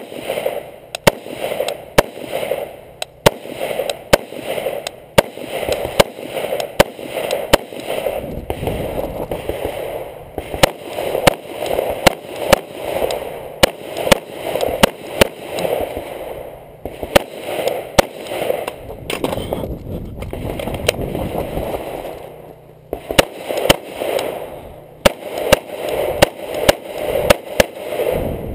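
A rifle fired shot after shot through a timed stage, most shots about a second apart with a few short pauses, over a rustle of movement close to the microphone.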